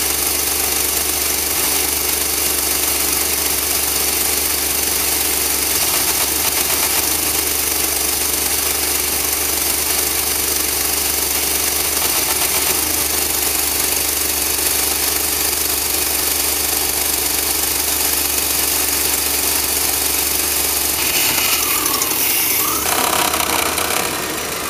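Chevrolet van engine running at a steady speed, heard close up through the open doghouse engine cover inside the cab.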